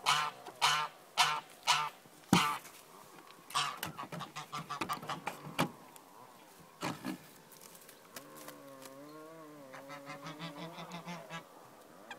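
Dutch bantam chicken giving loud repeated calls, about two a second, four of them in the first two seconds. Then a sharp knock and scattered ticks and taps, and near the end a fainter, drawn-out wavering call.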